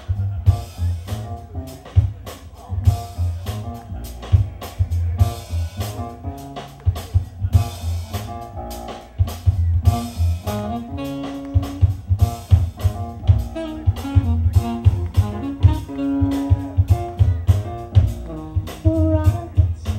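Live jazz-funk band playing an instrumental groove: an upright bass line and drum kit under melodic keyboard lines.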